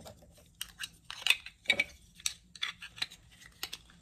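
Irregular small clicks and taps of hard plastic as a plastic rolling embossing cutter is handled and its little rubber wheel is taken off.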